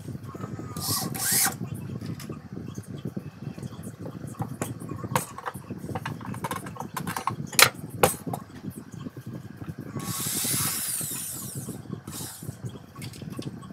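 Homemade grinding machine running with a low rumble, with scattered clicks and knocks and a hissing burst of grinding about ten seconds in.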